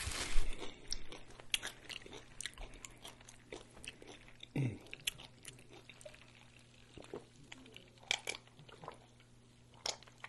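Close-miked chewing of a mouthful of food, with many short wet mouth clicks and smacks, and a quieter stretch in the second half while drinking from a paper cup.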